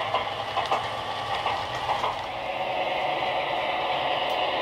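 Model locomotive's DCC sound decoder playing a diesel engine running steadily through its small speaker, a sound file built from a French locomotive with an engine of the same series as the Kestrel's. There is light irregular clicking from the model train's wheels on the track in the first two seconds.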